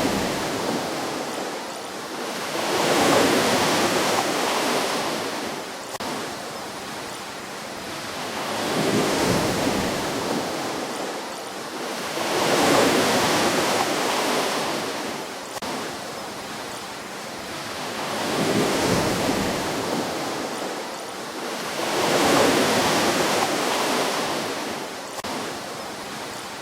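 Ocean waves breaking and washing up a shore, each surge building to a rush of surf and then draining away. About five surges come and go, several seconds apart.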